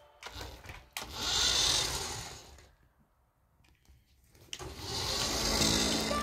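Small battery-powered remote-control toy car driving over a tile floor: its little electric motor whirring with the hiss of plastic wheels on the tiles, in two runs with a short pause in between.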